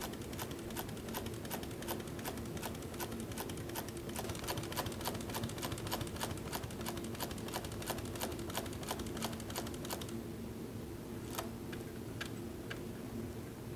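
Pfaff 145 walking foot industrial sewing machine stitching through leather at a slow, steady pace, its needle and feed clicking about three to four times a second over the steady hum of its motor. The stitching stops about ten seconds in, leaving the hum and a few single clicks.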